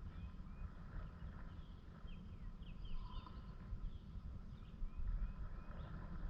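Birds chirping and whistling: many short calls with quick rising and falling notes, over a faint steady low rumble.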